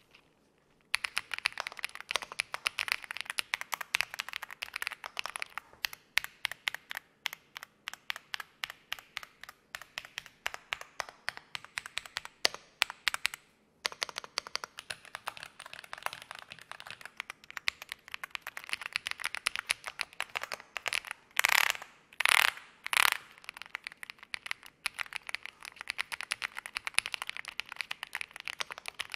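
Typing on an EPOMAKER Galaxy80 full-aluminium, gasket-mounted mechanical keyboard with hot-swap Marble switches and PBT keycaps. Fast runs of key clicks give way to slower, more spaced strokes for several seconds. After a short pause near the middle, fast typing resumes, with three louder, heavier strokes a little later.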